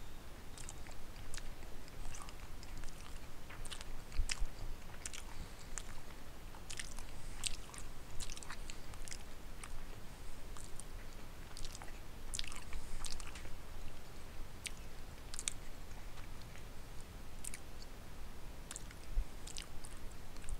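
A person chewing a mouthful of pot roast, carrots and potatoes, with irregular mouth clicks and smacks throughout.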